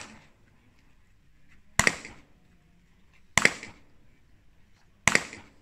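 Three pistol shots, about a second and a half apart, each with a short echo off the range.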